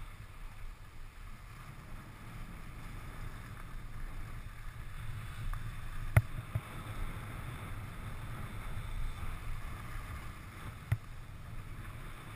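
Skis sliding and carving over packed, groomed snow, a steady rumbling hiss mixed with wind buffeting a body-mounted action-camera microphone. A sharp click comes about six seconds in and a fainter one near the end.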